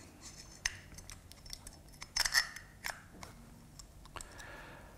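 Small metal clicks and taps of a multiplier reel's side plate being fitted back onto the frame by hand. A short cluster of clicks about two seconds in is the loudest, with a few single clicks around it.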